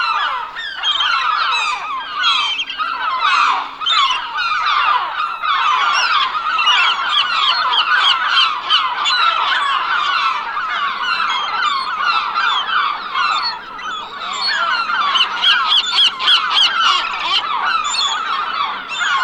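A large flock of birds calling all at once: a dense, continuous chorus of many short overlapping calls, easing briefly about two-thirds of the way through.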